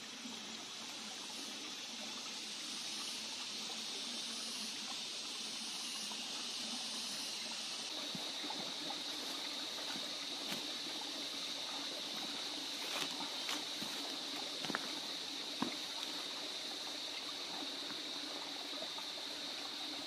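Shallow creek trickling over rocks, a steady rushing hiss. About eight seconds in a steady high-pitched drone joins it, and a few light knocks come near the middle.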